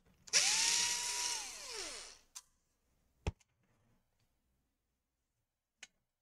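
Black+Decker cordless drill-driver spinning up, running for about a second at a steady whine and winding down, backing out a hinge screw. A few sharp clicks follow.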